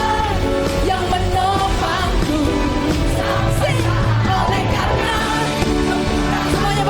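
Live praise band playing a worship song, with singing over a steady band accompaniment.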